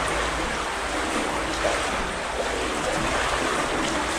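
Steady rush of water in an underground culvert tunnel, with sloshing from people wading through it.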